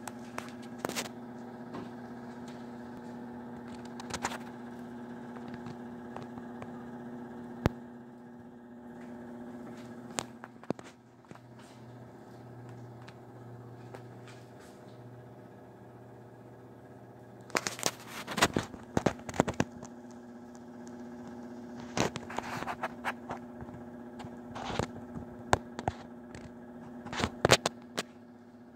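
Broan/NuTone ceiling exhaust fan running with a steady hum, overlaid by scattered crackling clicks that come thickest in the last third.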